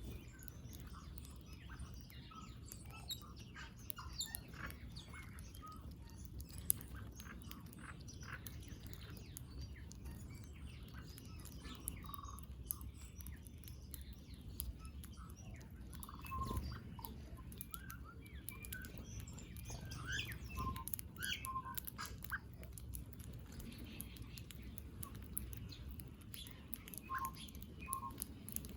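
Small birds feeding, giving short scattered chirps and tweets among many light ticks and clicks of pecking, over a steady low background rumble.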